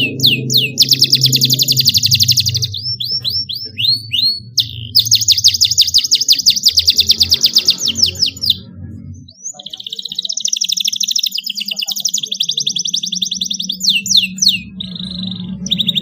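Domestic canary singing: long, fast rolling trills alternating with short runs of quick downward-sweeping notes, with a brief pause about nine seconds in. Low background music runs underneath.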